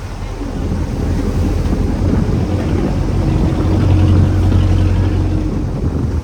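A small fishing boat's engine running steadily at sea, with wind and water noise over it; the engine sound swells about four seconds in.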